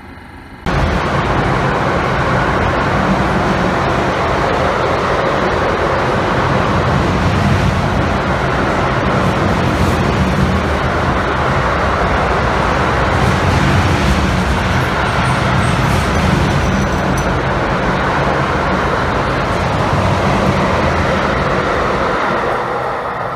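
Freight train of loaded double-deck car-carrier wagons passing close by: a steady loud rolling rumble of wheels on rail, starting abruptly about a second in and easing off near the end.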